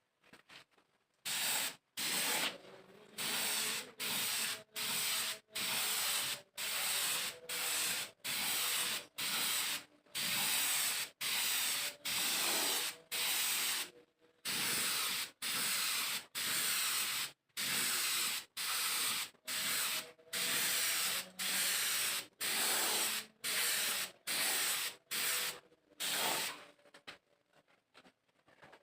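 Spray gun hissing in short repeated bursts, about one a second, as paint is sprayed onto wood in quick passes.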